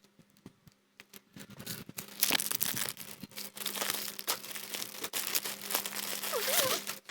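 Plastic packaging crinkling and rustling as it is handled, a dense run of small crackles starting about a second in.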